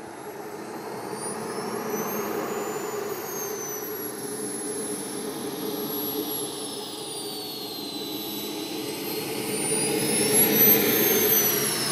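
Small gas-turbine engine of a radio-controlled model jet whining as the jet taxis. The pitch of the whine rises and falls with the throttle, and it grows louder near the end as the jet comes closer.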